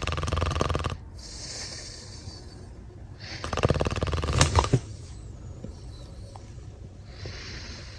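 A person snoring loudly in sleep: two long, rattling snores about three seconds apart, the second the loudest, and a fainter one near the end.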